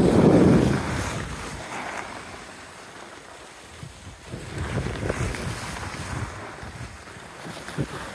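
Wind buffeting the microphone of a camera carried by a downhill skier, mixed with the hiss and scrape of skis over choppy snow; loudest at the start, easing off, then swelling again about halfway through.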